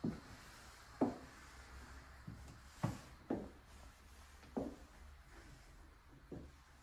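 Slow footsteps, dull thumps about a second apart, over a faint low steady hum.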